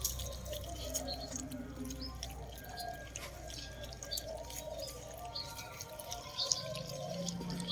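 Puppies eating: a run of wet, clicky smacking and lapping sounds.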